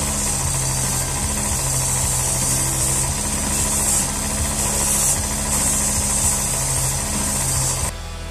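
Bench-mounted electric motor spinning an abrasive sanding drum, a steady hum with a high hissing grind as the edge of a leather insole is pressed against it and roughed. The grinding hiss swells and eases a few times, and the sound cuts off suddenly near the end.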